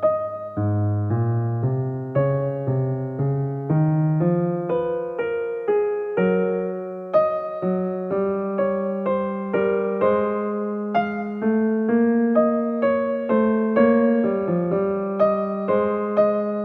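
Background music: a solo piano or electric piano playing a gentle melody of struck notes over a held bass, each note ringing and fading.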